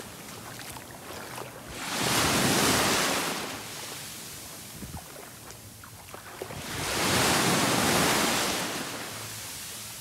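Small waves washing up onto a sandy beach: a steady hiss of surf that swells and fades twice, about two seconds in and again about seven seconds in, as a wave breaks and its wash runs up the shore.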